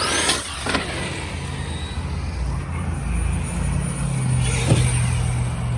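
Arrma Kraton 8S brushless RC truck being driven, its motor whining up in pitch at the start, with a sharp knock about three-quarters of the way through.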